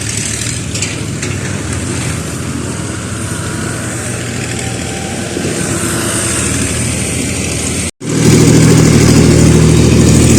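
Motor engines running steadily amid street noise. Near the end the sound breaks off for an instant and returns much louder, with a heavier engine hum close by.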